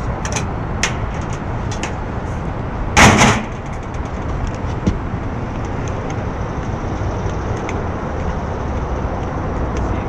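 Steady mechanical rumble with scattered sharp clicks and knocks of handling, and one loud clank about three seconds in.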